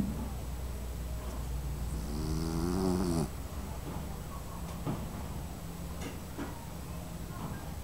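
A small dog snoring in its sleep. About two seconds in comes one louder, pitched snore that rises slightly and cuts off after about a second, followed by quieter breathing with a few faint clicks.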